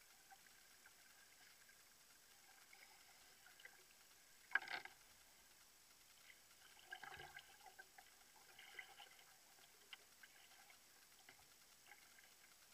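Near silence with faint water sounds around a canoe: soft drips and lapping, with one short louder splash about four and a half seconds in and a few softer ones around seven and nine seconds.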